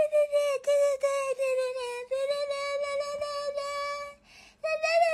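A high voice holding long notes at one steady pitch, with brief dips in pitch, breaking off about two seconds in and again near four seconds.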